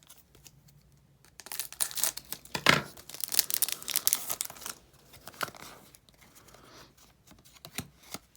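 A trading-card booster pack wrapper being torn open, with crinkling of the wrapper; the tearing is loudest from about one and a half to five seconds in, then gives way to softer crinkles and a few clicks as the cards are handled.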